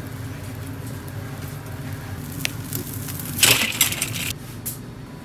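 A bundle of straw burning over a grill to sear fish, crackling. About three and a half seconds in comes the loudest sound, a short burst of splashing and rattling as the seared fish goes into a bowl of ice water.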